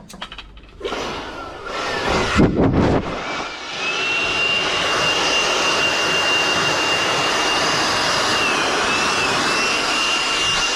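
Knocks and handling sounds, then an electric motor starts about three and a half seconds in and runs steadily: a rushing air noise with a constant high whine, much like a blower or vacuum.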